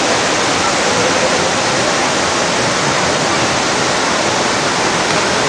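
Steady, even rush of several waterfalls spilling over a broad rock ledge into a river pool.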